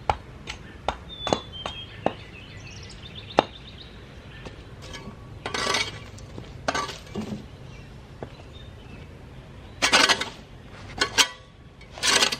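A string of sharp knocks of tools striking wood. Then, from about five seconds in, several short bouts of scraping and tearing as a long-handled tool pries bark and rotten wood off a log.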